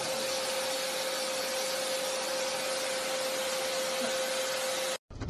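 Vacuum cleaner running steadily, a hiss with a steady whine in it, which cuts off abruptly near the end.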